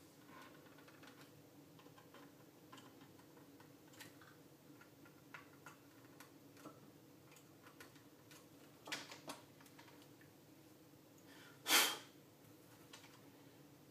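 Faint scattered clicks and taps of an antenna analyzer's circuit board and plastic case being handled during reassembly, with one louder brief handling noise near the end as the unit is lifted.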